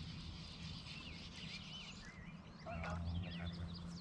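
Many small birds chirping with quick rising and falling calls, over a steady low hum, with one louder, rougher call about three seconds in.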